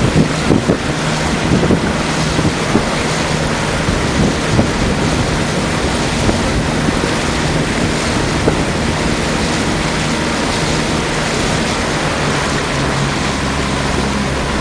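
Motorboat engine running steadily at low speed, largely covered by wind buffeting the microphone, which gusts harder in the first few seconds. Near the end a deeper engine hum comes in.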